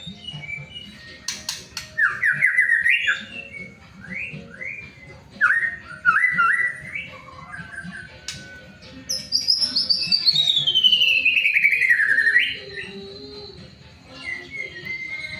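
White-rumped shama (murai batu) singing: two short phrases of fast, rising trilled notes, then a long trilled whistle that falls steadily in pitch over about three seconds and ends with an upward flick.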